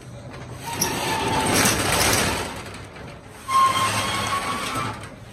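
Corrugated metal roller shutter being pulled down shut, rattling with a metallic squeal. It goes in two runs, the second starting abruptly about three and a half seconds in.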